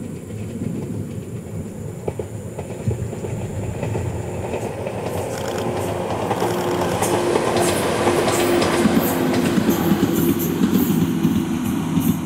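Ohmi Railway two-car electric train, set 808F, passing, its wheels clicking over the rail joints over a steady motor hum. It grows louder as it draws nearer, and the clicks come thick from about halfway through.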